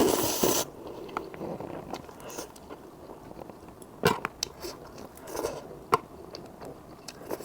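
Close-miked eating of cup ramen noodles: a loud half-second noisy slurp at the start, then chewing with scattered sharp clicks and smacks.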